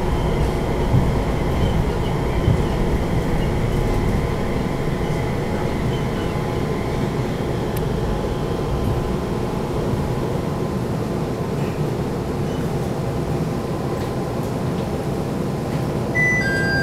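Airport people-mover train running into the station, a steady rumble with faint whining tones. Near the end a two-note chime sounds, a short high note then a lower one, as the doors are about to open.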